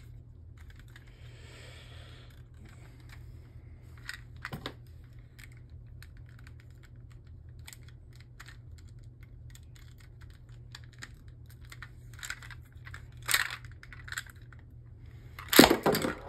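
Scattered light plastic clicks and taps from a Beyblade launcher being handled, with a louder cluster of clicks near the end, over a faint steady low hum.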